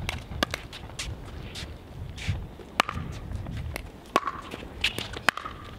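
A doubles pickleball rally: several sharp pops of composite paddles striking a plastic pickleball, spaced irregularly about half a second to a second and a half apart, with players' footsteps scuffing on the hard court in between.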